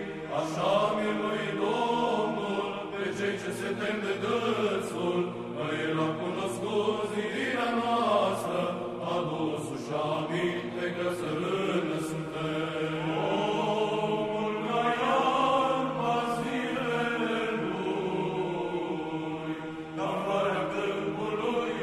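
Orthodox church chant: voices singing a slow melody over a steady held drone note.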